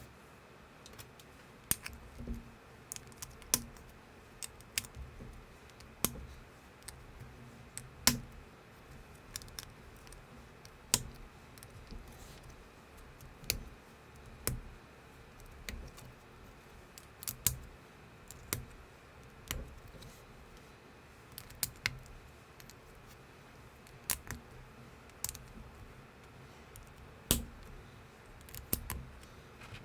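Plastic building bricks clicking and snapping together as pieces are handled and pressed on. The clicks are sharp and come at uneven intervals, roughly one a second, with softer knocks between them.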